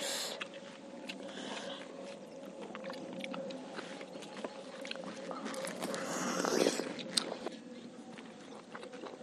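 Mukbang eating sounds: chewing and lip-smacking with many small sharp clicks as several people eat chicken with their fingers, over a faint steady hum.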